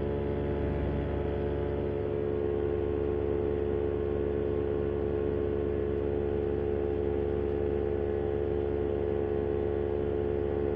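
Vittorazi Moster 185 single-cylinder two-stroke paramotor engine and propeller running at a steady cruise throttle in flight, an even, unchanging drone.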